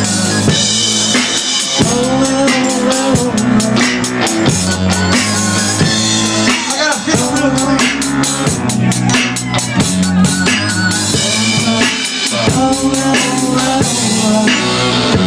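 A band playing live: a drum kit with cymbals keeps a steady beat under electric guitars.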